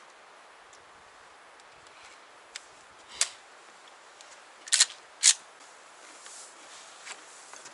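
A handful of short, sharp clicks at uneven intervals, the loudest three in the middle, two of them close together.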